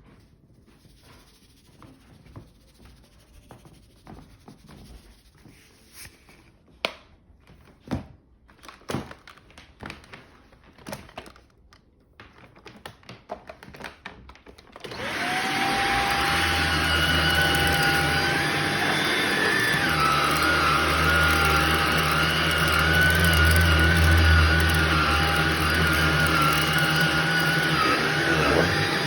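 Scattered clicks and knocks of handling for about fifteen seconds, then a Shark vacuum cleaner switches on, its motor whine rising as it spins up, and runs steadily on a shag rug.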